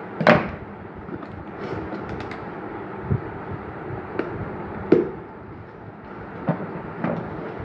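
A cardboard shipping box being handled and cut open by hand, with a few short knocks and scrapes of cardboard, the loudest about a third of a second in and again about five seconds in, over a steady background hiss.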